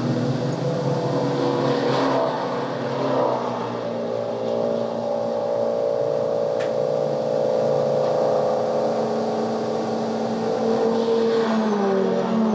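A sound-effects recording of an engine running, played back on a 1976 Sony TC-520CS stereo cassette player, over a background hiss. The engine holds a steady pitch, then drops slightly in pitch near the end.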